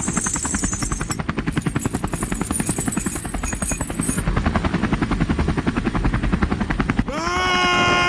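Small engine running with a fast, even chugging beat, the pulsing of a miniature tractor's motor. About seven seconds in, a long wailing, voice-like tone sets in abruptly, falling slightly in pitch.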